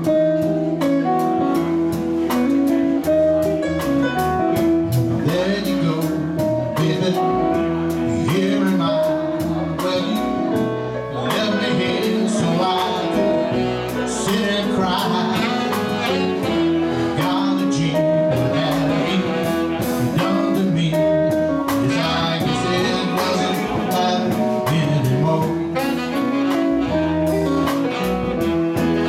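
Small live band playing a blues-jazz number: saxophone lead over guitar, keyboard and drums, with a steady beat.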